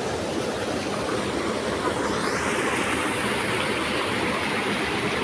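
Fast-flowing muddy stream rushing over its stony bed: a steady rush of water.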